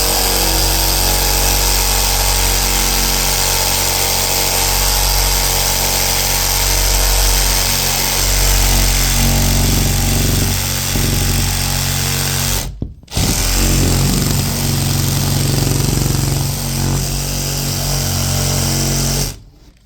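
Cordless reciprocating saw with a metal-cutting blade cutting a hole, running steadily. It stops for a moment about two-thirds of the way through, starts again, and cuts off just before the end. The blade is getting dull and smoking in the cut, as the owner judges it.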